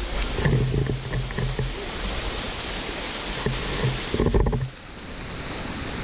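Steady rush of waterfall and stream water, with low rumbles on the microphone early on and again about four seconds in; the sound drops sharply a little past four and a half seconds in.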